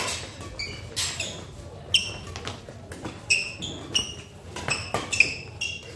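Badminton doubles rally: several sharp cracks of rackets striking the shuttlecock, a second or two apart, with many short high squeaks of players' shoes on the court floor between them.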